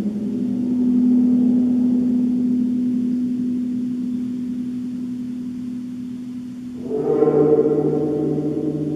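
A large Javanese gong, 200 cm across, ringing with one deep sustained tone that swells about a second in and then slowly fades. About seven seconds in, a fuller ringing with many overtones comes in.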